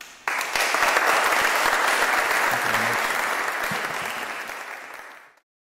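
Audience applauding, breaking out suddenly just after the song's final note and then cut off abruptly near the end.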